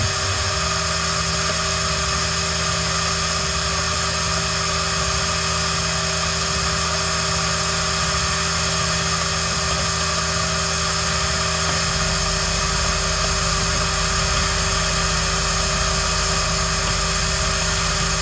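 Tormach 440 CNC mill running steadily, its spindle turning a small cutter in a hole in an aluminium plate, with a constant whine and hiss. A deeper hum comes in about twelve seconds in.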